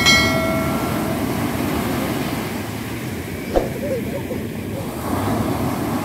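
Waves breaking and washing up a pebble beach, a steady rush of surf. A bell-like chime, the sound effect of a subscribe-button animation, rings right at the start and fades within about a second, and a single sharp knock comes about three and a half seconds in.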